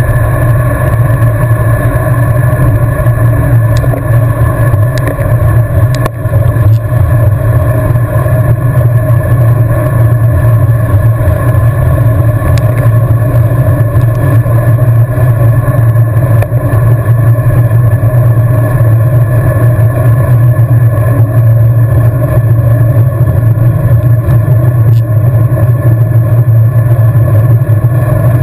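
Steady rush of wind and road noise on a camera carried on a road bike riding at speed, with a few faint clicks.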